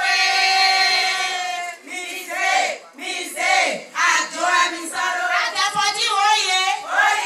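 A woman singing into a microphone, amplified, with other women's voices singing along. It opens with one long held note, then breaks into short phrases that rise and fall in pitch.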